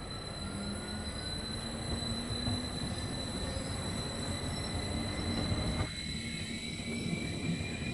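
WESTbahn Stadler KISS double-deck electric multiple unit rolling past along the platform, a steady rumble of wheels on rails with a faint electric whine rising slowly in pitch.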